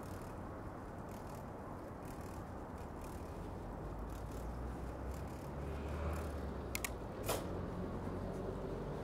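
Street traffic ambience heard from a moving bicycle: a steady low rumble of traffic that grows a little louder about six seconds in. About seven seconds in come two sharp mechanical clicks, the first one doubled.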